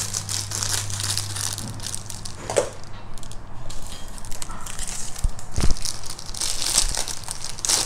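Thin clear plastic packaging crinkling as it is snipped open with scissors and pulled off a silicone pop-it fidget toy. A couple of sharp taps come a little over five seconds in.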